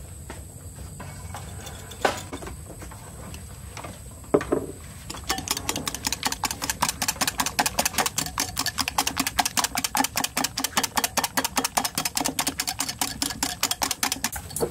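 Wire whisk beating eggs in a glass bowl, the wires clicking fast and evenly against the glass at about six strokes a second, starting about five seconds in. Before it, two sharp knocks.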